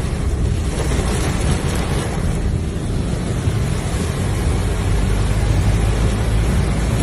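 Heavy rain and driving noise heard from inside a moving car in a tropical-storm downpour: a steady wash of rain and road spray with a deep rumble from wind buffeting the microphone.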